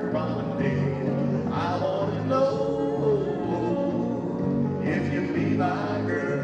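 Country-style square-dance music with a steady beat and guitar, and a man singing a call over it at times.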